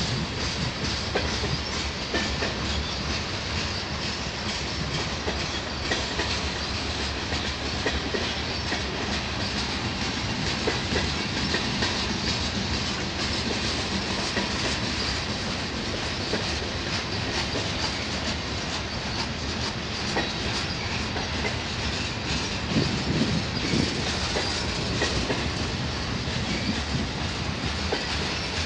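Freight cars of a CN train, centerbeam flatcars loaded with lumber and boxcars, rolling steadily past: a continuous rumble with wheels clacking over the rail joints, and a few louder knocks in the later part.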